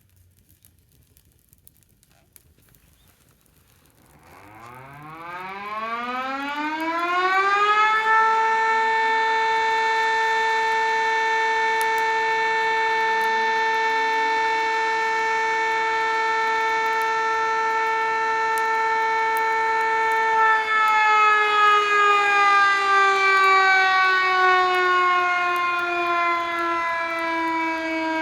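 Outdoor motor-driven public siren, the kind a Japanese town sounds as a time signal. It winds up from a low growl to a high steady pitch over about four seconds, holds that pitch for about twelve seconds, then begins slowly winding down.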